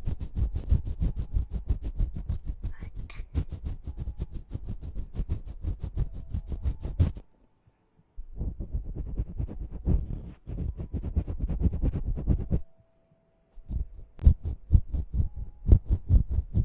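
ASMR ear-cleaning sounds: rapid scratching and rubbing right against the microphone, many strokes a second with a deep thud to each, stopping twice for about a second.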